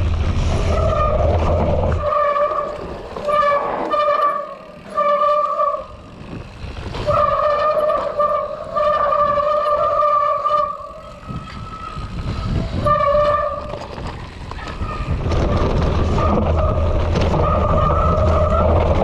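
Mountain-bike hydraulic disc brakes squealing in a series of on-off howls as the brakes are pulled and released, with wind and tyre rumble in between.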